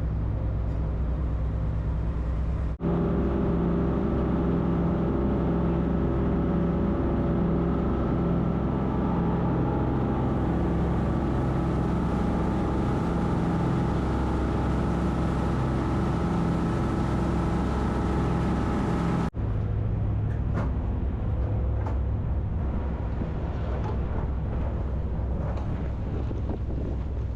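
A passenger ferry's engine running steadily, with a constant hum and wind buffeting the microphone. The sound cuts abruptly twice, about 3 seconds in and about 19 seconds in.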